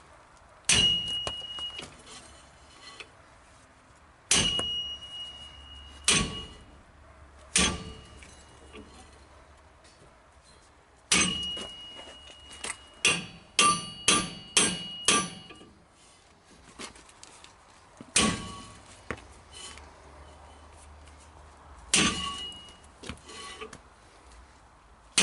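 Hammer blows on the end of a hub puller fitted to a 1948 Nash Ambassador's brake drum, striking the puller to shock the tight drum loose from its axle. The blows come singly every few seconds, with a quick run of about eight around the middle, and several ring with a metallic tone.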